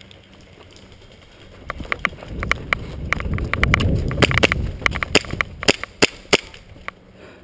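Airsoft guns firing: an irregular string of sharp pops begins a couple of seconds in and runs until near the end, over a low rumble in the middle.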